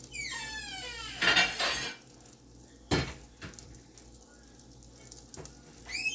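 Kitchen dishes being handled: a squeak falling in pitch, a short burst of rustling, then a sharp clack of a plate set down about three seconds in, followed by a couple of lighter knocks and another short squeak near the end. Potato rounds sizzle faintly in the pan underneath.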